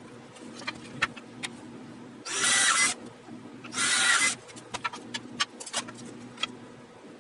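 Power drill boring two short pilot holes in wood, about half a second each and a little over a second apart, with light clicks and knocks around them.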